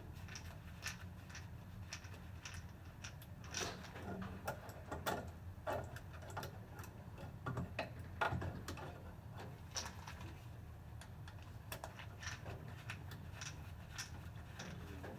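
Scattered light clicks and taps of hand tools and small hardware being handled, irregular and with no steady rhythm, over a low steady hum.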